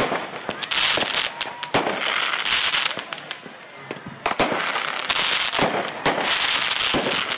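Aerial fireworks going off: a rapid string of sharp bangs and crackles with hissing between them. There is a lull of about a second near the middle, then another barrage starts.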